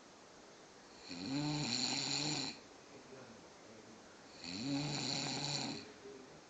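A man snoring in deep sleep: two long snores, each about a second and a half, with a quiet pause of about two seconds between them.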